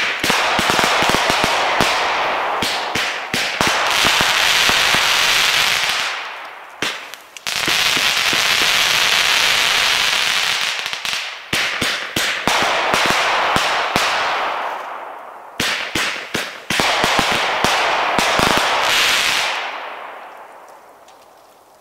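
Raccoon Fireworks Wings of Wrath 200-gram fan cake firing. Sharp shot pops are each followed by several seconds of dense crackling from the crackle stars. This comes in about four waves, then dies away near the end.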